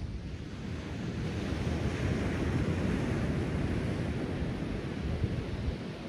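Ocean surf breaking and washing up a sandy beach: a rush of water that swells about a second in and eases off toward the end, with wind buffeting the microphone underneath.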